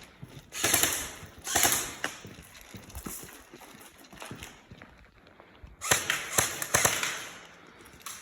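Airsoft guns firing in short rapid bursts: two bursts about a second in and a cluster of three around six to seven seconds in, with scattered single clicks between.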